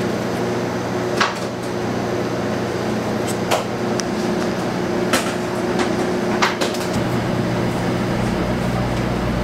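Commercial kitchen ambience: a steady machine hum with about four short, sharp clinks and knocks of metal kitchenware. A deeper hum comes in near the end.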